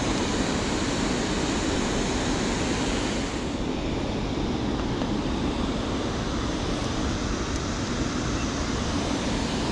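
Steady rushing of river water spilling over a dam and churning through the fast water below it. The higher hiss softens slightly about three and a half seconds in.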